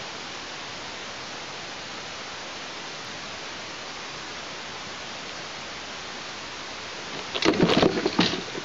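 Steady hiss, then about seven seconds in a loud, short burst of several heavy flaps and rustling: an eastern imperial eagle's wingbeats as it takes off from the stick nest.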